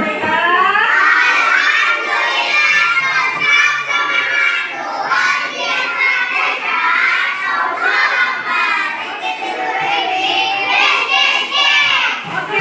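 Many children's voices talking and shouting over one another at once: the loud, steady chatter of a busy classroom.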